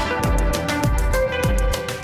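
Background music with a steady beat and sustained instrument notes.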